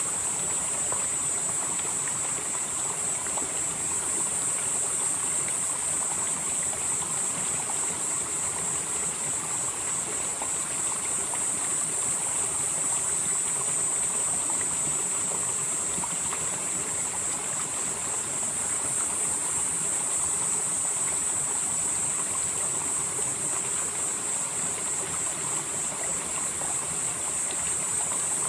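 Valley stream flowing steadily, an even rushing of water with no breaks. A steady high-pitched hiss runs over it and swells and fades slowly every several seconds.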